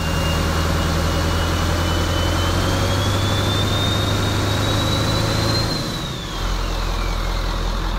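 Truck's V8 diesel engine running steadily, with a high whine that slowly climbs and then falls away; about six seconds in the engine note dips briefly and settles lower.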